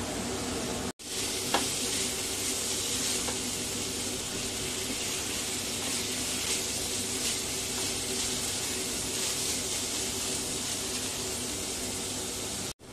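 Shredded vegetables sizzling steadily in hot oil as they are stir-fried in a non-stick wok, with a few light scrapes of a plastic spatula against the pan. The sizzle cuts out briefly twice, about a second in and near the end.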